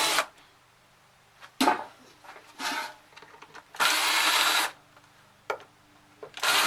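Power drill run in short bursts to back out screws: two brief whirrs, a longer run of about a second, then another starting near the end.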